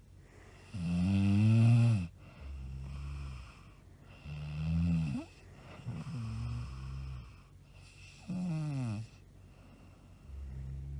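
A woman snoring in a steady rhythm, about one breath every three to four seconds. Each cycle has a loud snore that wavers in pitch and then a quieter, low buzzing breath. The first snore is the loudest.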